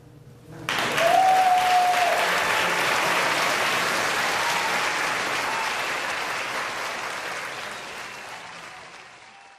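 Audience applauding, breaking out suddenly less than a second in and slowly dying away, with one short high call ringing out over it near the start.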